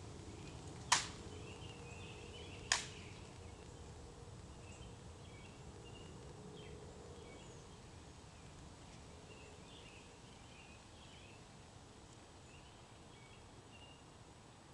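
Two sharp clicks from the Tomb guards' drill, about two seconds apart, near the start. After them only faint high chirping over a low steady outdoor background.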